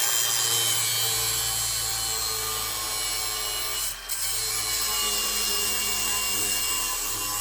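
Handheld power tool running continuously on metal chassis parts, with a steady whine and a brief dip about four seconds in.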